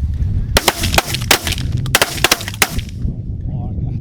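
A rapid volley of shotgun shots from several waterfowl hunters firing at once, about ten shots over two seconds beginning about half a second in.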